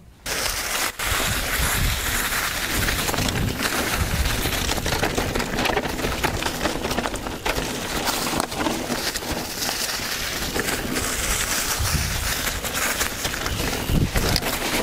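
A mountain bike rolling down a dirt trail covered in dry fallen leaves: the tyres keep up a crackling rustle through the leaves, with scattered short knocks.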